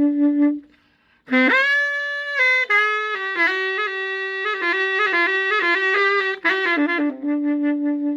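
A solo wind instrument playing a melody: a held low note with a pulsing vibrato, a short break, then a note scooping up into a long high note, a run of quicker notes, and another long held low note near the end.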